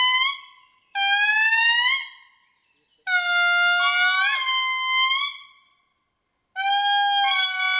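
Indri singing: loud, wailing, horn-like notes, each held for a second or two and stepping up in pitch partway through, repeated about every two to three seconds with short silent gaps.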